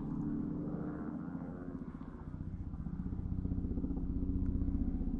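Helicopter flying toward and over the listener, its rotor beating rapidly over a steady low engine drone. It dips slightly about two seconds in and then grows louder.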